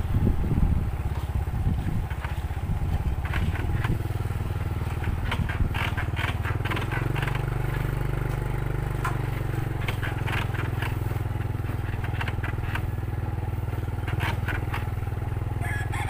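Motorcycle engine running steadily at low speed, with clicks and rattles as the bike jolts over a rough, potholed dirt road.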